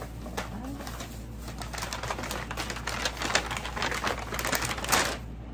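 Plastic and brown paper shopping bags rustling and crinkling as items are dug out of them. The crinkling builds up and grows loudest near the end, over the steady hum of an air conditioner and fans.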